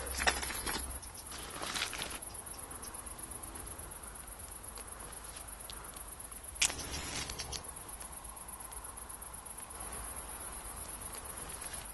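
Faint rustling of clothing and leaves with small scattered clicks. About two-thirds of the way through, a single sharp click with a short hiss after it as a cigarette is lit.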